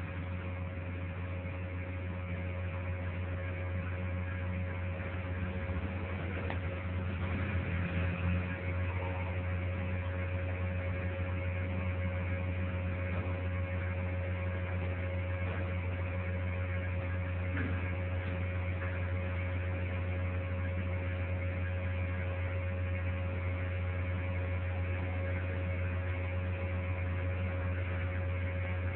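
Steady low electrical mains hum with a thin steady whine above it and a background hiss.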